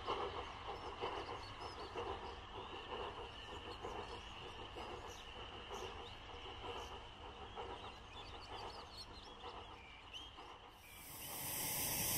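Archive field recording of a steam locomotive dying away into the distance, leaving birds singing in the open-air background. Near the end a steady hiss swells up.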